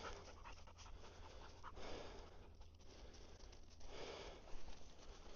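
Hunting dog panting faintly while searching cover for a downed pheasant, with a few louder breaths or rustles about two and four seconds in.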